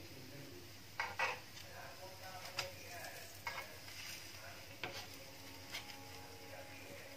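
Flat wooden spatula scraping and tapping on a tawa as a dosa is folded over its potato stuffing: half a dozen short strokes, the loudest two about a second in. Faint sizzling of the dosa cooking underneath.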